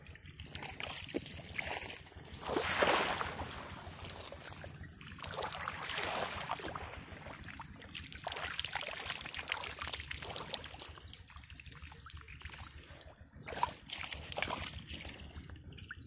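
Shallow pond water splashing and sloshing in several uneven bursts as a person wades in rubber waders and sweeps a dip net through it; the loudest burst comes about three seconds in.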